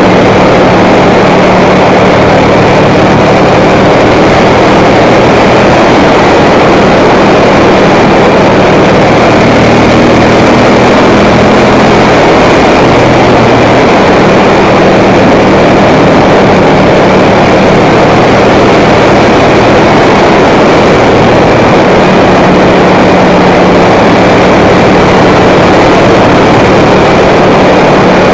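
Ducati M900 Monster's air-cooled L-twin engine running steadily at road speed under heavy wind noise on the camera's microphone. The engine note climbs slightly about ten seconds in and drops back a couple of seconds later.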